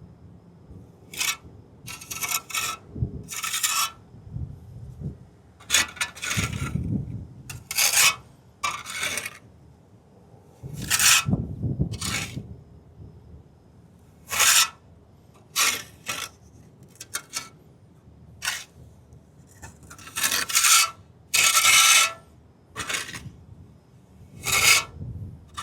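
Trowel scraping and smoothing wet quick-setting cement over a concrete curb patch, in short irregular strokes with brief pauses between them.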